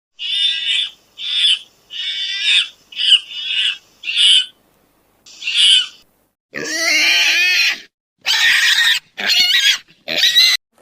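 A series of high-pitched animal calls: six short calls in the first six seconds, then a longer, fuller call, then three more short calls near the end.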